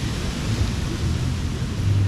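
Ocean surf washing onto the beach: a steady wash of noise with a deep low rumble underneath.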